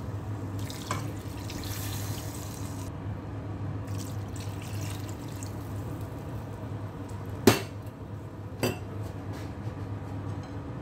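Water poured from a glass into a large steel pot of chicken in gravy, the cooking water being added for a chicken pulao, over a steady low hum. Two sharp clinks about a second apart, about three-quarters of the way through, are the loudest sounds.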